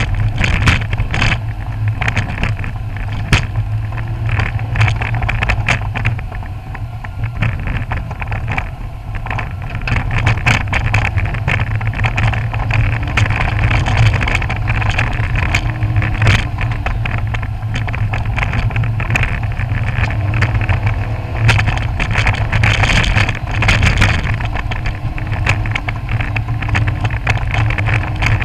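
Lancia Stratos heard from inside the cabin on a rough forest road: the engine runs steadily under road and tyre noise, with frequent sharp clunks and rattles over the bumps. The knocking comes from the right rear shock absorber, whose cartridge has worked loose in its case and strikes the bottom of the case at each bump.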